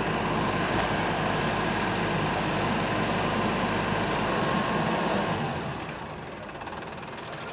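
A heavy engine running steadily, then easing to a lower level about five seconds in.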